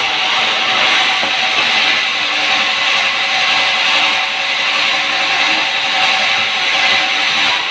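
Sawmill saw cutting through timber: a loud, steady cutting noise with a faint constant whine underneath.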